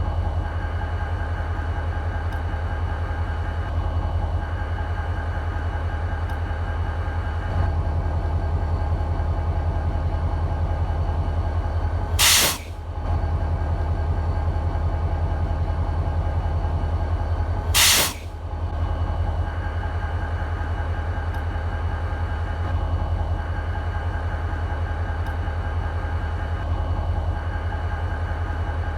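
EMD SD40-2 diesel locomotive's two-stroke V16 engine idling steadily with a low, even throb. Twice, about twelve and eighteen seconds in, a short loud burst of hiss cuts through for under a second.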